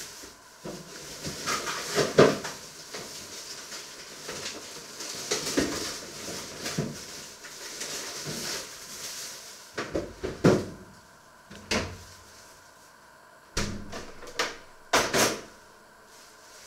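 Kitchen handling noises: rustling and scattered knocks and bumps as things are moved about, with several sharper knocks in the second half.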